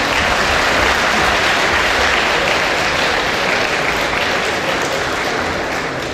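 Crowd applauding: dense, steady clapping that eases off slightly near the end.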